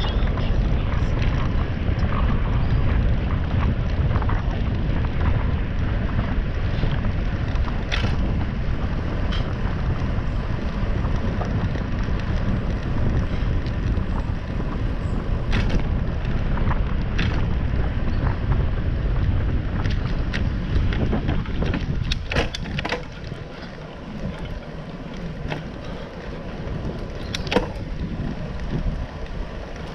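Wind rumbling on the action camera's microphone together with tyre noise from a bicycle rolling along a paved trail, with a few sharp clicks and rattles from the bike. The rumble eases about three quarters of the way through.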